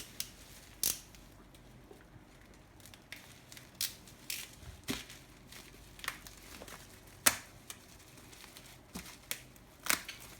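Keyboard box and its packing being handled and unpacked: scattered crinkles, scrapes and short knocks, the sharpest about seven seconds in.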